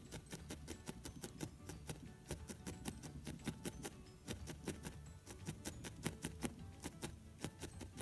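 Felting needle stabbing repeatedly through wool into the felting mat beneath, a quick, irregular run of light ticks, several a second.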